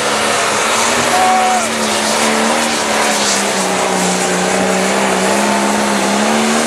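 Light pro stock pulling tractor's turbocharged diesel engine running flat out under heavy load as it drags a weight-transfer sled, spewing black smoke. The engine note sags lower around the middle as the sled bears down, then climbs again near the end.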